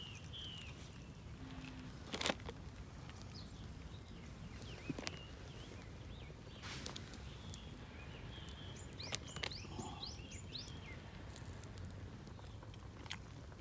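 Quiet outdoor ambience: a steady low rumble with birds chirping at the start and again about two-thirds through. A few sharp clicks and crackles, the loudest about two seconds in, come as charred grilled fish is picked apart by hand over a campfire.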